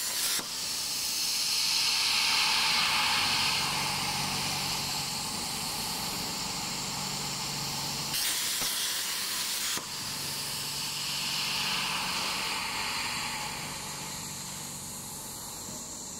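Portable CNC plasma cutter's torch hissing steadily, with a faint low hum underneath. The hiss changes abruptly about eight seconds in and returns to its steady sound a second and a half later.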